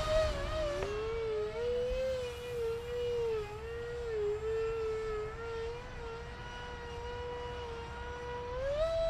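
Electric ducted fan of a FreeWing SU-35 RC jet whining in flight. The pitch drops about a second in, wavers up and down, then climbs again near the end.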